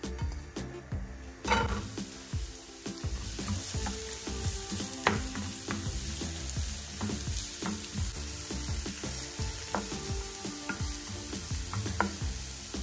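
Food going into hot oil in a pan about a second and a half in, then sizzling steadily while it is stirred, with scattered clicks of the utensil against the pan.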